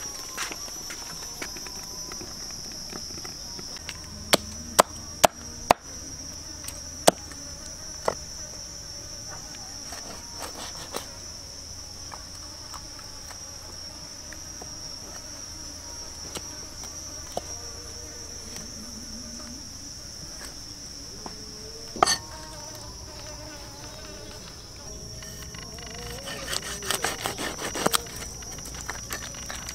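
A steady, high-pitched insect chorus drones throughout. Over it come scattered sharp clicks and knocks: a handful in the first several seconds, a louder one about two-thirds of the way through, and a quick run of them near the end.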